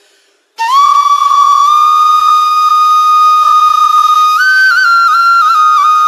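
Background music: a solo flute comes in sharply about half a second in and holds one long note. Near the end it breaks into short, ornamented steps between neighbouring notes.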